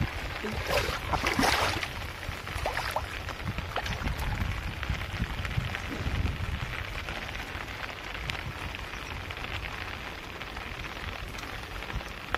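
Water splashing and dripping as a gill net with small fish in it is hauled and handled in shallow water, loudest about one to two seconds in and then a steady patter of drips and small splashes.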